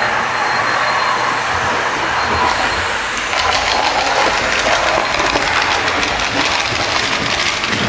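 HO-scale model of a Dutch Plan V electric train running along the layout track with a steady rattling clatter, getting louder about three seconds in as it passes close by.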